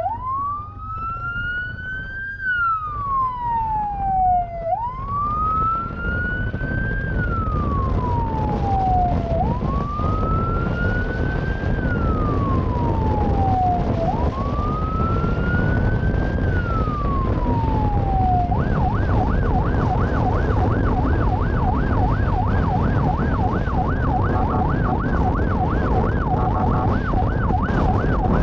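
Police siren on wail, each tone rising and then falling slowly, about every four to five seconds, switching about two-thirds of the way in to a fast yelp of about three cycles a second. Steady road and wind noise runs underneath.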